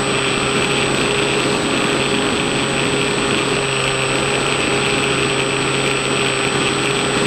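Small RC plane's electric motor and propeller running at a steady throttle, heard from the onboard camera, with air rushing past.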